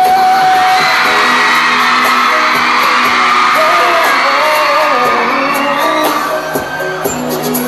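Male pop singer singing live into a microphone over a backing track, holding a long note in the first second, while the audience screams and whoops.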